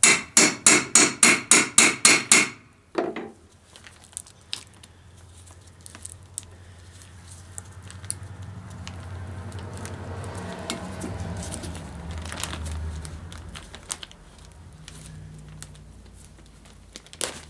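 Hammer striking a hole punch through a tarp onto a steel plate to cut a grommet hole: about ten quick ringing metal blows, roughly four a second, then one more. After that, faint rustling and clicking as the tarp is worked off the punch by hand.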